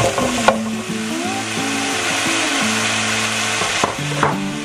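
Cubed raw potatoes dropping into hot oil in a pan with carrots, the oil sizzling and hissing as they land, with a few knocks of pieces hitting the pan near the start and near the end. The sizzle swells about half a second in and eases near the end.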